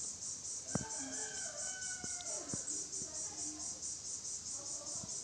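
A rooster crows once, a long call lasting about two and a half seconds, over the steady high pulsing chirp of insects, about five pulses a second.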